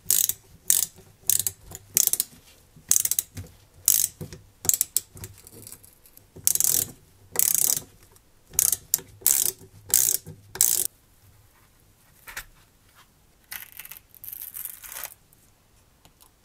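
Small hand ratchet wrench clicking in short, repeated bursts, about one or two a second, as it tightens bolts on a model engine's cylinder head. Near the end, fainter clatter of small metal parts being picked out of a plastic parts box with tweezers.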